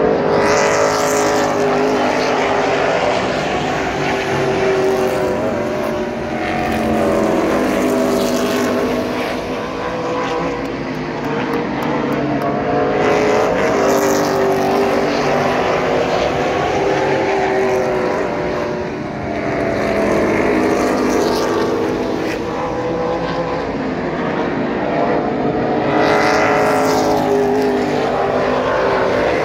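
Stock car engines running hard as several cars race around an oval track. The pitch rises and falls and the sound swells about every six seconds as the cars come past.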